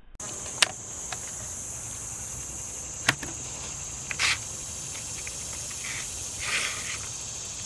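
Steady high-pitched chorus of insects, with several sharp clicks and a brief rustle over it.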